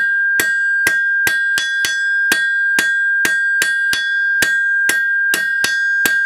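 Blacksmith's hammer striking a cold iron bar on a wrought iron worker's anvil, about two and a half blows a second, drawing it from round to square. Between the blows the anvil rings with one clear, steady tone.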